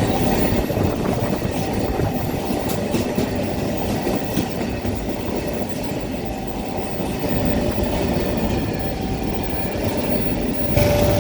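Rail inspection car running along the track with a steady rumble and clatter of wheels on the rails. Near the end its newly fitted siren starts sounding a steady tone.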